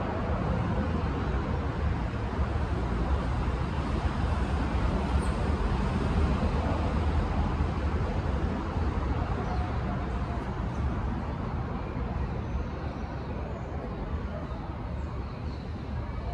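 Steady low rumbling background noise with no distinct events, easing slightly over the last few seconds.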